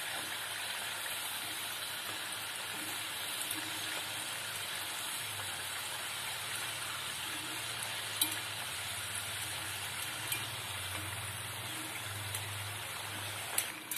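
Rice-flour murukku deep-frying in hot oil: a steady sizzle of bubbling oil, with a few faint clicks from the stick turning them in the pan.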